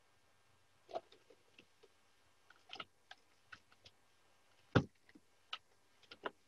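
Computer keyboard keystrokes: a handful of faint, separate key clicks at an unhurried pace, the loudest about three quarters of the way through.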